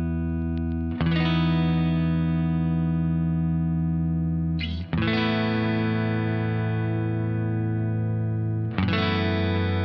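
Squier Thinline Telecaster electric guitar played clean through a Boss GT-100 amp modeler: three chords struck about four seconds apart, each left to ring out.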